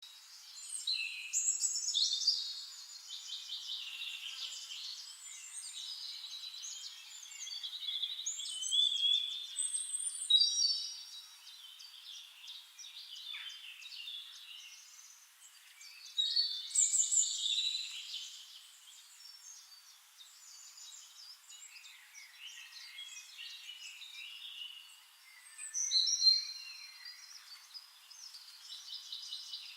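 Songbirds singing: varied high chirping and trilling phrases, with the loudest phrases recurring every eight seconds or so.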